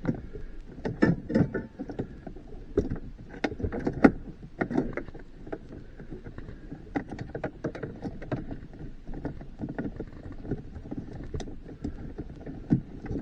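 Irregular clicks, knocks and light creaks of truck dashboard parts and hand tools being handled as the dash is taken apart for a radio install.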